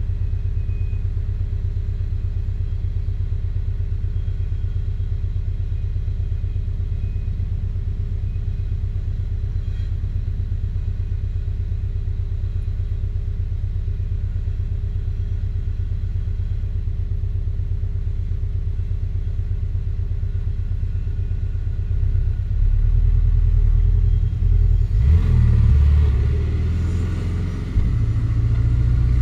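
Porsche 718 Boxster's 2.0-litre turbocharged flat-four and road noise during a drive, a steady low rumble with a faint steady tone above it. About three-quarters of the way through the rumble grows louder and uneven, and a brief rush of higher noise joins it for a couple of seconds.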